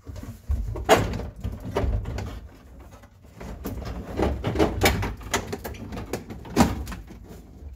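A Ford Festiva's plastic dashboard being lifted and worked back over the steering column by hand: a string of irregular knocks and clunks as it shifts and bumps, the loudest about a second in and near the end.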